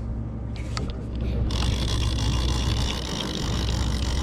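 A boat's engine humming steadily and low. A few light clicks come a little under a second in, and a steady hiss starts abruptly about a second and a half in.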